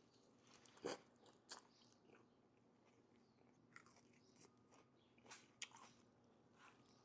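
Faint close-miked chewing of pastrami chili fries with grilled onions and jalapenos: soft wet mouth clicks and smacks, with the louder ones about a second in and again a little past the middle.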